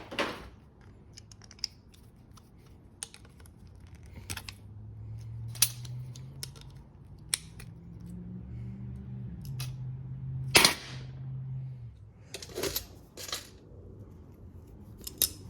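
Irregular sharp knocks and clicks of hard plastic plug-in adapters and scrap parts being handled and knocked about, a dozen or so, the loudest about ten and a half seconds in. A low hum comes in through the middle and stops about twelve seconds in.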